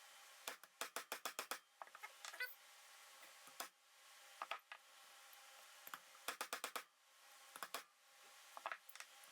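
A hammer striking a 3/4 inch socket to drive a bearing into an aluminum throttle body: quick runs of sharp taps, several in a row, with pauses between runs.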